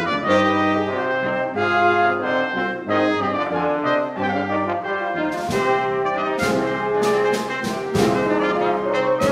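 Brass and wind chamber ensemble, with tuba, horns, trumpets, trombone, clarinets and flute, playing sustained chords over a low tuba bass. About five and a half seconds in, sharp percussion strikes join and repeat several times over the held brass.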